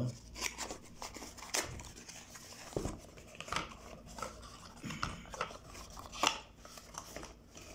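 Small cardboard product box being opened by hand: irregular short scrapes, rubs and clicks of the cardboard flaps and paper insert, the sharpest a little after six seconds in.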